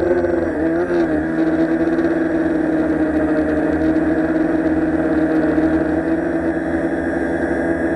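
Tarot Ironman 650 drone's electric motors and propellers running in flight, heard from the camera on board. It is a steady multi-tone whine that wavers in pitch briefly about a second in as the motors adjust.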